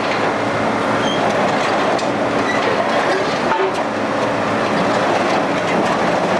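Heavy scrapyard crane running, with a steady rattling clatter and a few brief high metal squeals as it handles a stripped truck body.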